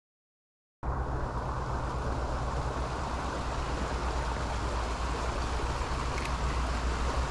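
Silence for under a second, then the steady rush of a fast-flowing creek, with a low rumble underneath.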